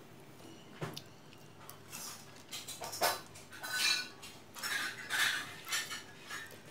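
Small handling sounds while soldering wires to a switch. A sharp click comes about a second in, then a run of short scraping and clinking sounds in the second half.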